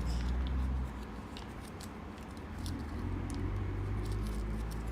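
Scattered light clicks and taps of small plastic toys and packaging being handled, over a steady low hum.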